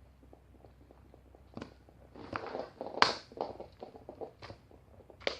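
Scattered knocks, clicks and rustling, like someone moving about and handling things. It starts faint, then a busy patch of rustling comes about two seconds in, with the sharpest click near the middle.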